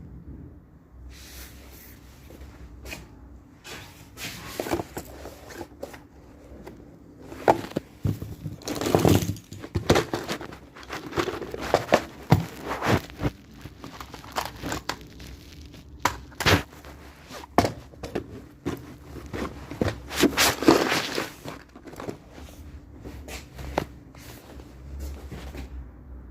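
Packaging being handled and opened: irregular crinkling and tearing with scrapes and short knocks, busiest in the middle and again about three quarters of the way through.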